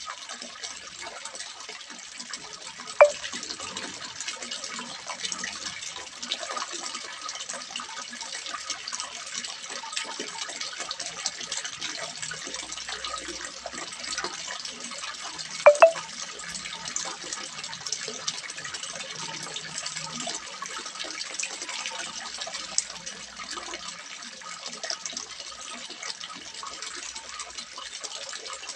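Water splashing steadily into a small fish pond: a continuous splashing hiss. Two short sharp sounds stand out, about three seconds in and again, doubled, around sixteen seconds.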